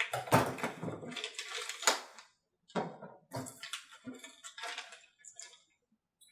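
Plastic packaging bag crinkling and rustling as a model-engine muffler is pulled out of it, with two sharp clacks of metal set down on a cutting mat. The rustling comes in several bursts and stops about a second before the end.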